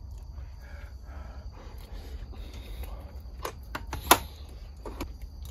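A few sharp clicks and knocks of kitchenware being handled, the loudest about four seconds in, over a steady low hum.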